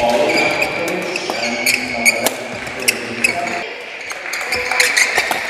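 Badminton doubles rally: repeated sharp racket strikes on the shuttlecock and court shoes squeaking on the hall floor.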